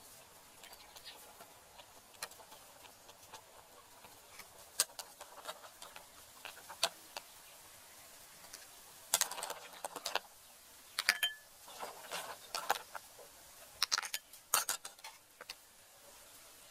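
Metal ladle clinking and scraping against an aluminium pot of snail and vegetable soup: scattered sharp clinks, coming in quick clusters in the second half.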